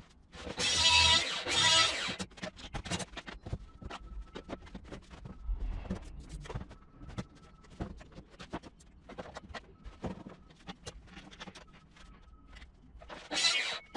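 Plunge circular saw running along its guide rail, cutting through a sheet of board with a whining, noisy sound for about a second and a half near the start. It is followed by scattered knocks and clatter from boards and tools being handled, and another short loud burst near the end.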